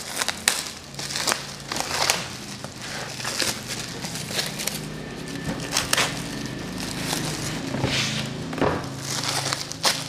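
Plastic shrink wrap crinkling and crackling as it is torn and pulled off a cardboard box by hand, in irregular sharp crackles and rustles.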